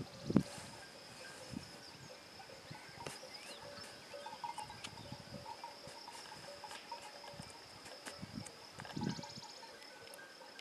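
Faint, steady high-pitched insect trill, with a few low thumps near the start and again about nine seconds in.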